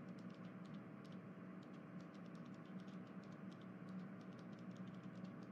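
Faint room tone: a low steady hum with soft, irregular clicks, several a second.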